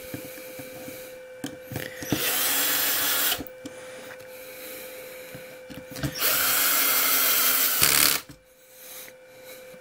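Cordless electric screwdriver running twice, first for about a second and then for about two seconds, starting Phillips screws into a plastic RC-car chassis brace. Light clicks of handling sound between the runs.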